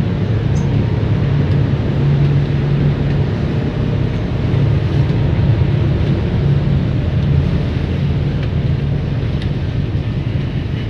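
A car ferry's engines droning steadily as it moves, heard from on board as a constant low hum.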